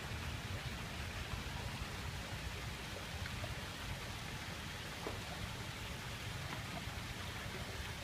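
Water from a fountain's pipe spout splashing into a concrete pool: a steady hiss over a low rumble.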